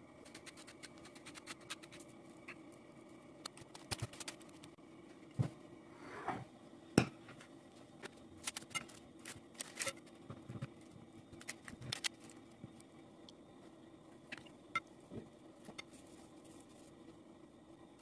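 Scattered small clicks and taps from handling, with a short scrape about six seconds in and a sharp knock about seven seconds in.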